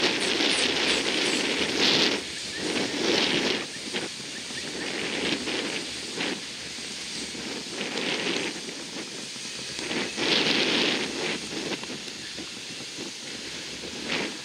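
Gusty wind rustling and buffeting, rising in several irregular surges over a steady rushing noise.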